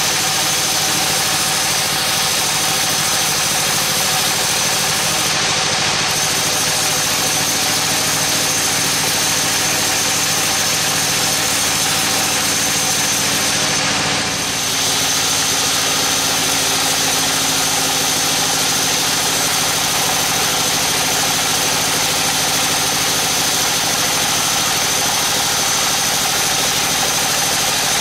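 Bandsaw sawmill running steadily with a high whine, its blade sawing lengthwise through a teak log; the sound dips briefly about halfway through.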